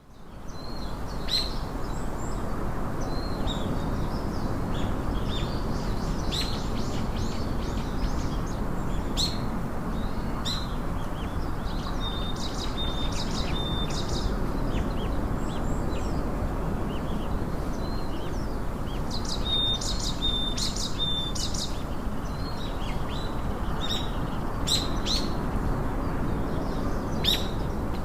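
Songbirds chirping: many short, high chirps scattered throughout, with two quick runs of rapidly repeated notes, one a little before halfway and one about two-thirds through. Underneath is a steady, low outdoor background hum.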